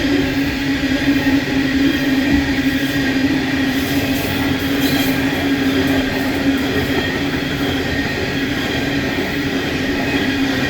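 Coal train running past, a steady, even rumble of wheels on the rails with a constant low hum and no distinct clickety-clack beat.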